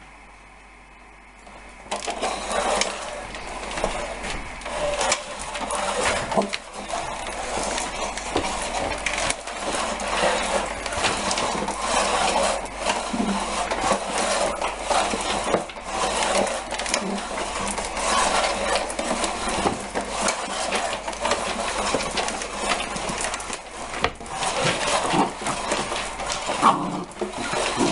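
A puppy scuffling and playing with an unplugged vacuum cleaner: irregular clattering, knocking and scraping that starts suddenly about two seconds in, with no motor running.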